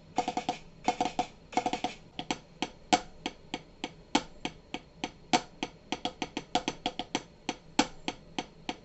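Drumming taps on a hard surface. The first two seconds are quick little rolls of clicks, then come sharp single taps at an uneven three or four a second.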